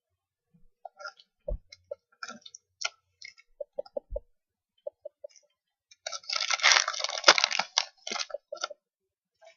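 Trading cards being handled: scattered light clicks and taps of cards and sleeves, then about two seconds of dense rustling and crinkling some six seconds in.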